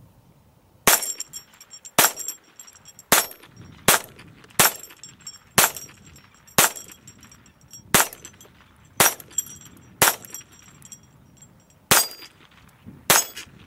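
Smith & Wesson M&P 22 pistol fired twelve times at a steady pace of about one shot a second, .22 LR cracks with a short high metallic ring after most of them from hanging steel targets being hit.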